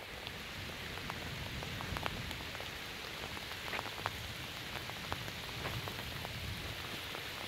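Rain falling steadily, a hiss with many separate drops ticking sharply close by.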